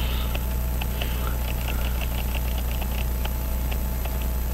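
A steady low electrical hum, with faint quick ticks running through it at about five or six a second, from the escapement of a Howard 21-jewel pocket watch movement that is still running in its holder.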